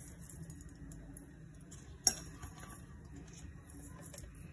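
Metal kitchenware knocking against a pressure cooker pot: one sharp clink about two seconds in, with a few faint light ticks and scrapes around it.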